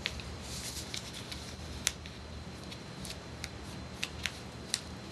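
A sheet of printing paper being folded and creased by hand: scattered crinkles and sharp little snaps and rustles over a faint steady hum.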